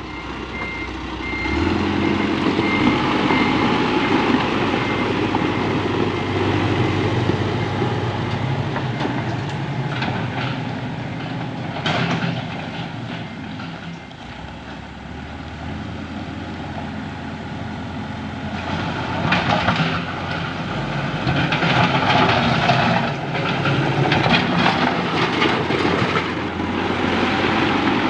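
Caterpillar 416F backhoe loader's diesel engine running under way, fading as the machine moves off and growing louder as it comes back close. From about two-thirds of the way through, loud rattling and clatter rides over the engine.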